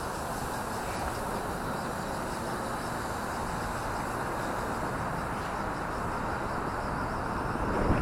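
Steady wind rushing over the microphone in a gusty breeze, with the faint, even whine of a WLtoys V950 RC helicopter's motor and rotor underneath.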